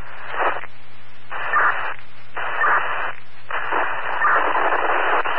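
Static hiss on a fire department two-way radio channel, loud and steady, dropping out briefly three times.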